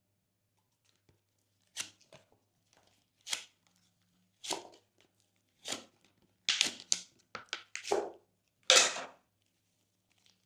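Glossy slime being squeezed and pressed by hand, giving sticky pops and crackles. They come singly about once a second, then as a quicker run, with the loudest pop near the end.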